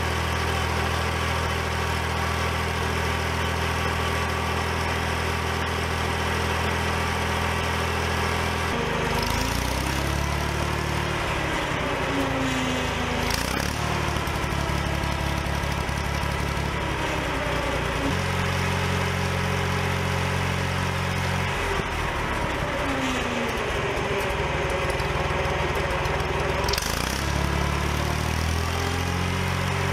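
Oliver OC46 crawler loader's carbureted engine running after a carburetor cleaning and new bowl gasket. Its speed changes several times, rising and falling in smooth glides before settling again.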